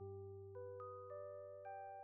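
Faint, gentle background music: a short run of about five soft bell-like mallet notes, each higher than the last, ringing over a low sustained tone.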